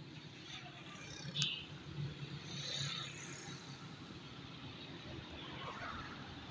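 Road traffic passing on a city street: motorcycle and car engines with a steady low hum. There is a short, sharp sound about a second and a half in.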